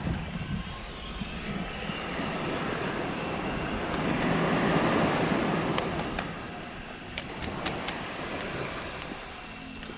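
Surf washing on the shore and wind buffeting the microphone, swelling to a peak about four to five seconds in, with a few faint clicks in the second half.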